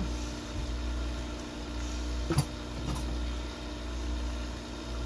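Steady low mechanical hum, with one short sharp click about two and a half seconds in.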